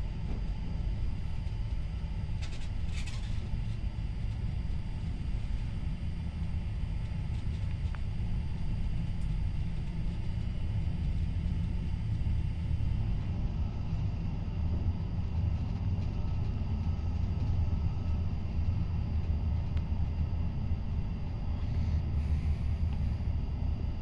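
Škoda EJ575 electric multiple unit running on the line, heard from inside the carriage: a steady low rumble with a faint steady high whine over it, swelling slightly about two-thirds of the way through.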